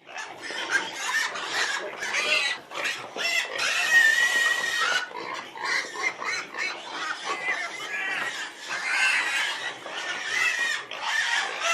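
Domestic pig squealing and calling in a continuous run of calls, with a long held squeal about four seconds in.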